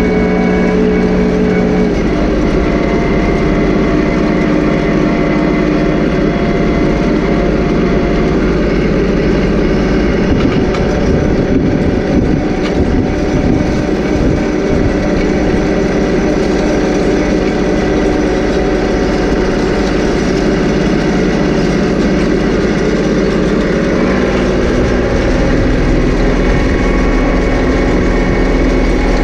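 John Deere 2038R compact tractor's three-cylinder diesel running steadily under load while pulling a chain drag harrow through pasture turf. Its pitch drops about two seconds in and shifts again near the end.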